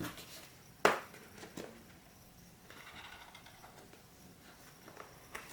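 A cardboard product box being handled and opened by hand: a few light clicks and taps, the sharpest about a second in, with a faint scraping near the middle.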